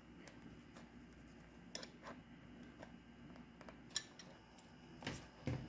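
A few faint, scattered clicks and taps, the sharpest about four seconds in, of channel-lock pliers pressing a strap screw's base into the rollerblade's plastic.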